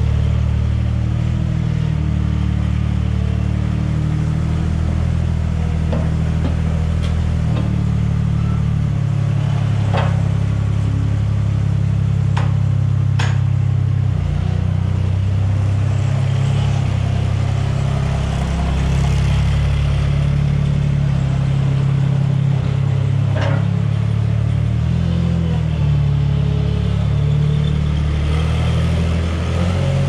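Compact farm loader's engine running, its speed rising and falling a few times as it drives, with a few sharp clanks and rattles.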